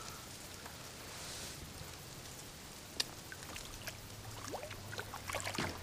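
Faint splashing and dripping water as a caught bass is let back into the river over the side of a kayak. A single sharp click comes about three seconds in, and a few small ticks and drips follow near the end.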